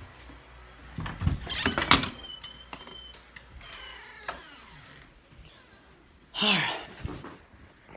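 Handling noise from a handheld camera being moved about: rubbing and a cluster of knocks and thumps about one to two seconds in, then smaller clicks and faint squeaks.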